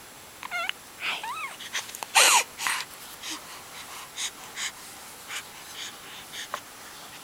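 A baby squealing and vocalising: a few short high-pitched squeals that bend up and down, the loudest about two seconds in, followed by a string of short, breathy huffs and wheezy breaths.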